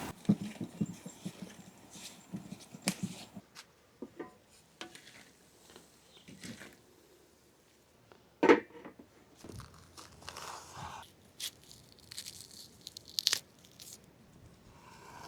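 Scattered crunching and tearing sounds with light taps, and one sharp knock about halfway through.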